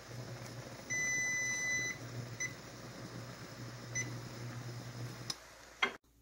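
Shrimp boiling in shallow water in a nonstick skillet, bubbling over a steady low hum. An electronic beep sounds for about a second, followed by two short beeps. Near the end the bubbling and hum stop and there is a quick clatter of chopsticks on the pan.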